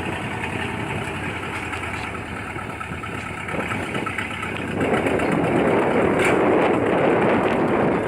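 1958 Chevrolet Apache pickup's engine running steadily after a plug cleaning and regap. About five seconds in, a louder rushing noise takes over.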